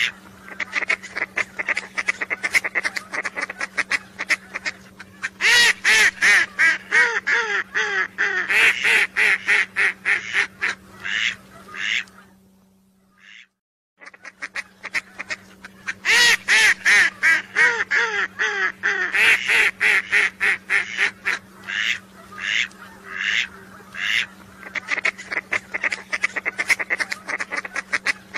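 Recorded calls of whistling ducks: rapid runs of high, whistled notes from several birds, over a steady low hum. About 13 seconds in the sound drops out for a moment and the same sequence starts over, a looped call track used to lure ducks.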